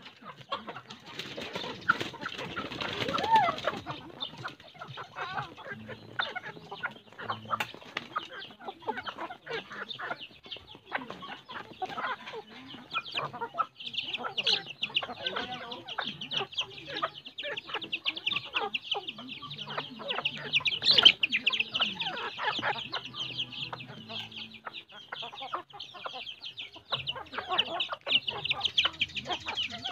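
A flock of chickens clucking and flapping as they crowd in and peck at scattered feed. A high, steady buzz comes in about halfway and keeps going.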